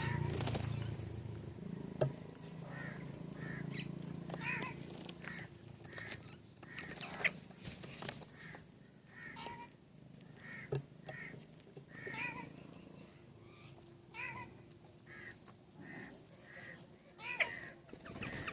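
Birds calling in short, repeated chirps, one every half second to a second, with a few sharp clicks among them.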